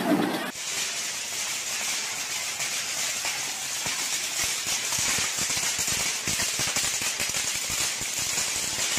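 Fireworks going off on a store shelf: a steady fizzing hiss with rapid crackling pops that runs on without a break.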